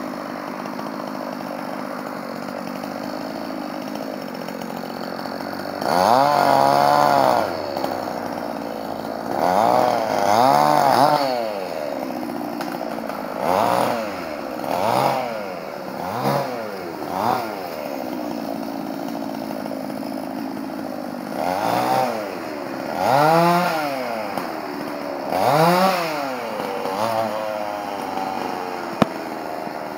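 Chainsaw idling, then revved up in about ten short bursts as it cuts through branches. Its pitch rises and falls with each burst, the longest burst lasting about two seconds. One sharp click near the end.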